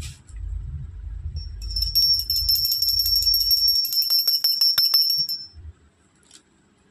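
A stack of bangles on a wrist jingling and clinking together as the arm is moved, with high ringing tones and a rapid rattle of small clicks, plus a few sharp knocks near the middle; it stops about two thirds of the way in. A low rumble of handling noise runs under the first half.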